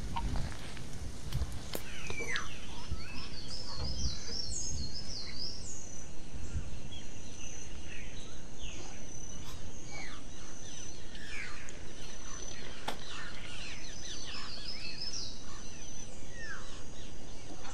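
Forest birds calling all through: many short descending whistles and quick repeated trilled phrases from several birds, over a thin steady high insect tone, with some low rumble in the first few seconds.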